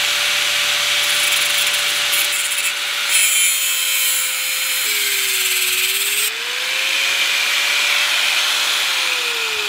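Corded angle grinder with a cut-off wheel cutting through a seized sway bar end link: a steady motor whine with the hiss of the wheel grinding through the metal. The whine drops in pitch under load midway through the cut, and near the end the motor winds down.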